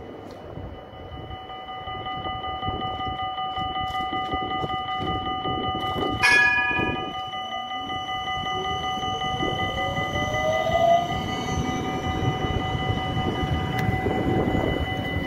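A Siemens Combino tram pulling away and passing close by: a steady high multi-tone whine from its drive, one sharp ring of its bell about six seconds in, then a whine rising in pitch as it gathers speed, over the rough running noise of the tram on its rails.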